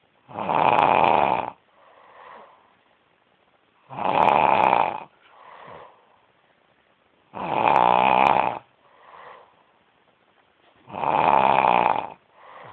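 A person snoring: four loud snores about three and a half seconds apart, each lasting about a second, with a fainter breath sound between them.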